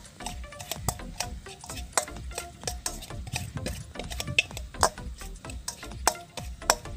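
Metal spoon scraping and clinking against a stainless steel bowl while stirring dry spice powders together, in quick irregular clicks.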